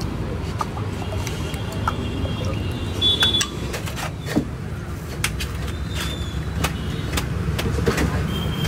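Metal kulfi moulds clicking and clinking against each other as they are handled and set into an ice-filled steel tank, over a steady low rumble of street traffic.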